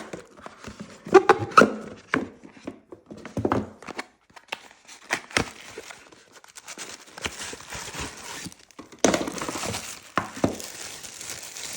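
Plastic and cardboard packaging being handled while accessories are taken out of a box. Scattered clicks and knocks in the first half give way to a longer stretch of rustling and crinkling, loudest in the last few seconds.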